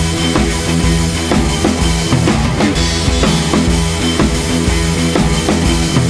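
Background music: a band track with a drum kit keeping a steady beat.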